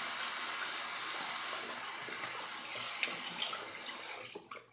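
Hot water running from a bathroom tap as a lathered shaving brush is rinsed under it to wash out the soap. The water sound drops a little under two seconds in and stops near the end.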